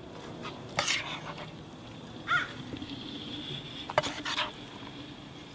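Metal spoon scooping lentil filling from a pan and packing it into a bell pepper: a few soft scrapes and light clicks of the spoon.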